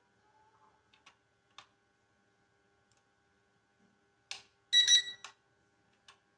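A few faint clicks, then about four seconds in a short rustle followed by a loud, high electronic beep from the P9S drone as it is switched on, and two more faint clicks.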